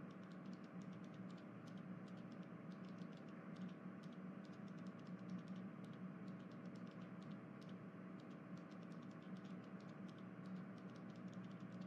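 Faint, rapid clicking over a low, steady hum.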